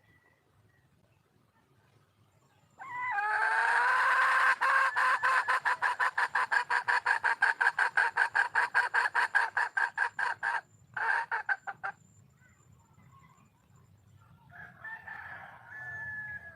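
Red junglefowl hen calling for a mate: a long, fast run of repeated clucking notes, about six a second, that starts about three seconds in and goes on for some nine seconds with a brief break near its end. Fainter calls follow near the end.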